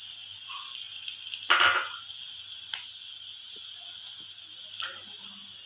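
Chopped onions and spices frying gently in oil in a pan, a soft steady sizzle. About one and a half seconds in there is one brief louder rasp, and two faint ticks come later.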